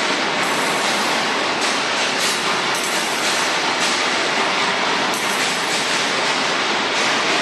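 FH1500 CNC rebar cage welding machine running: a steady, loud mechanical noise with brief surges every second or so.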